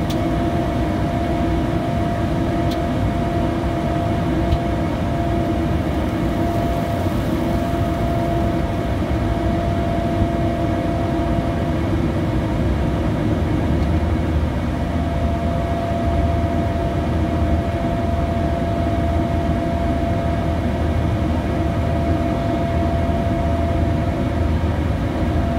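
Steady cabin noise inside a Bombardier Challenger 350 business jet in flight: a constant rush of airflow and the drone of its two rear-mounted turbofan engines, with a steady hum running through it.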